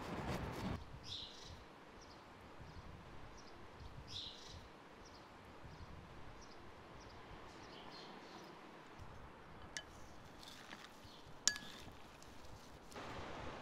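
Quiet outdoor ambience with faint bird chirps every few seconds. A knife cuts through food in the first second, and two sharp clinks come near the end.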